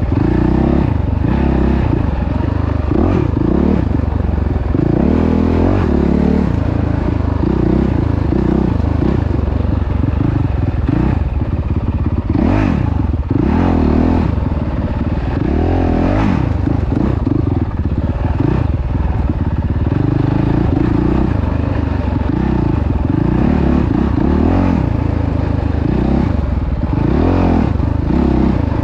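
An off-road vehicle's engine running continuously under changing throttle, its pitch rising and falling, with rattling and scraping from the vehicle over rough ground.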